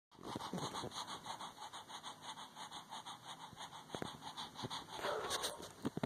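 Small dog panting fast and hard, about five breaths a second, in an even rhythm that breaks up about five seconds in.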